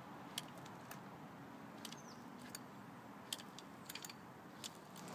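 Trikke three-wheeled carving scooter rolling over asphalt, heard as a quiet steady rolling hiss with scattered light clicks and rattles.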